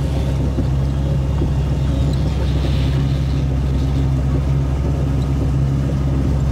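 Boat engine running at a steady speed, a low, even hum that holds without change.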